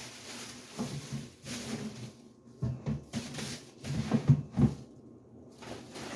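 Irregular knocks, bumps and rustling of household items being handled while a garbage bag is filled, with three sharper knocks in the second half.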